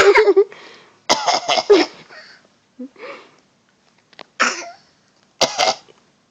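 Deliberate fake coughs in a series of short bursts. A quick cluster comes about a second in, followed by single, weaker coughs spaced a second or so apart.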